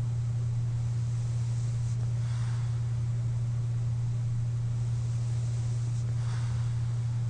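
Breathing of a sleeper wearing a CPAP mask: two soft, airy breaths about four seconds apart, over a steady low hum.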